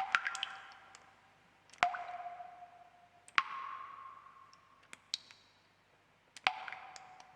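Water drops falling into water at uneven intervals, each landing with a sharp plink and a clear ringing tone that fades away. Four main drops land about two seconds apart, with fainter little ticks between them.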